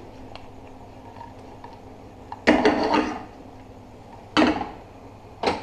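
Stir-fry vegetables tossed in a frying pan of hot butter, sliding and landing back in the pan in three bursts: a longer one about two and a half seconds in, a shorter one about two seconds later, and a brief one near the end.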